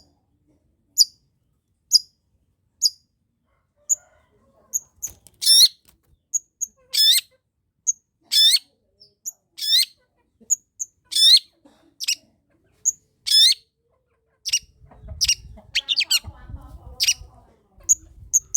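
Long-tailed shrike singing: short high chirps about once a second, then from about five seconds in loud, steeply falling notes repeated every second or so, alternating with the chirps.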